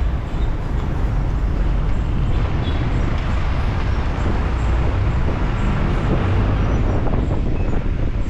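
Steady rumble and road noise of a moving vehicle, with wind buffeting the microphone.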